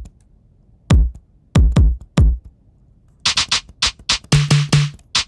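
Electronic drum samples played back in a beat: a few deep kick drum hits with a quickly falling pitch, then a quick run of bright, snappy snare hits. The drums are heavily compressed, run through tape saturation, EQ and a fast-attack, fast-release limiting compressor.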